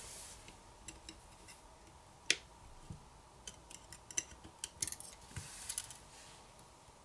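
Faint small clicks and taps of a metal pry tool against a Samsung Galaxy Note 10's internals as flex-cable connectors are popped off their board sockets. One sharper click comes a little over two seconds in, then a run of lighter ticks between about three and a half and six seconds, with a faint rustle of the flex cable being lifted.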